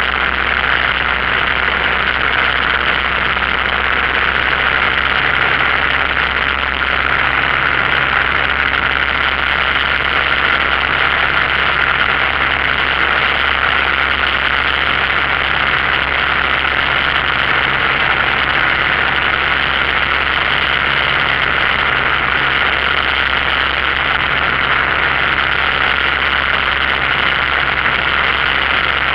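Single-engine light aircraft's piston engine and propeller running steadily in flight, heard inside the cockpit under a loud, even rush of airflow noise.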